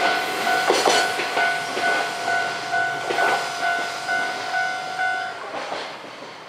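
Freight train wagons rolling over a level crossing, their wheels clicking on the rail joints and fading as the train goes by. The crossing's warning bell rings steadily over them and stops about five and a half seconds in.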